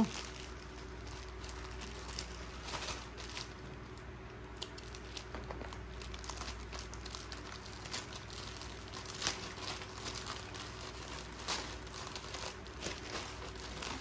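Packaging being handled and unwrapped, crinkling on and off in short crackles over a faint steady hum.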